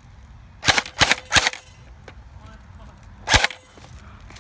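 Airsoft gun shots: three quick cracks about a third of a second apart, then one more about two seconds later.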